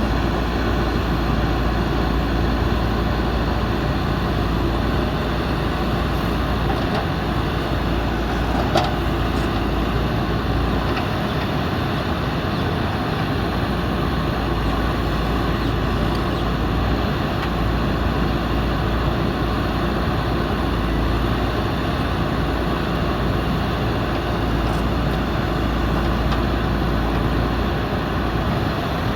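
JCB backhoe loader's diesel engine running steadily under work, with one short sharp knock about nine seconds in.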